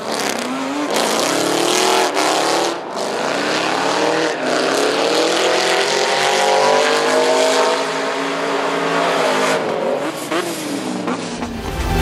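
Drift cars' engines revving hard, their pitch climbing and falling with the throttle over a broad hiss of sliding tyres, cut between shots. In the middle two engines run together, as in a tandem drift. About a second before the end, music with a deep bass comes in.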